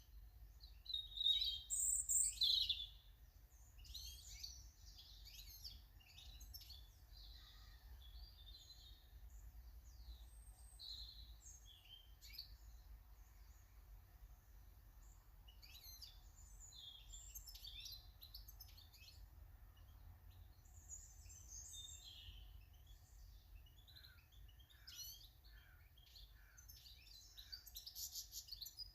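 Small garden songbirds chirping and calling, with many short, high-pitched calls overlapping throughout. The calls are loudest from about one to three seconds in, and a run of evenly repeated lower notes comes near the end.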